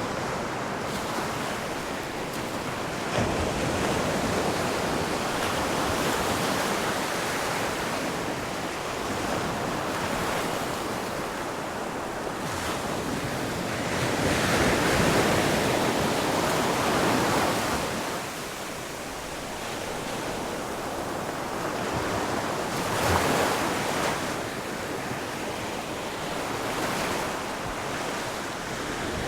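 Ocean surf: waves washing onto a shore in a continuous rush that swells and eases, loudest about halfway through.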